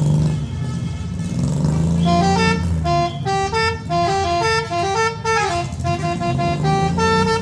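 Telolet horn on a Mitsubishi Jetstar bus playing a quick tune: a run of clear horn notes stepping up and down several times a second. It starts about two seconds in, over a steady low rumble.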